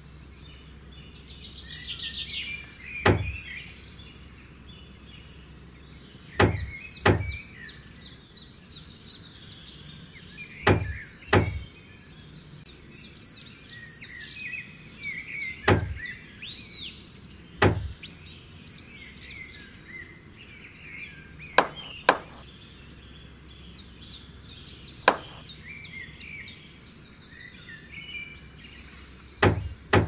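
Birds chirping, with about a dozen sharp wooden knocks, several in quick pairs, as small craft-stick parts of a model house are set in place.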